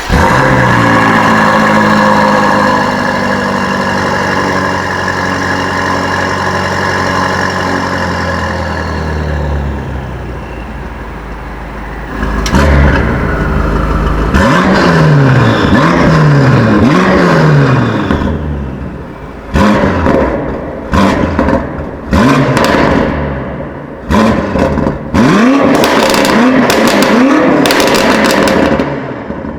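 BMW M5 F90's twin-turbo V8 running steadily with its pitch slowly sinking, then blipped repeatedly from about twelve seconds in, each rev falling away. Through the second half sharp pops and bangs come from the exhaust as the revs drop.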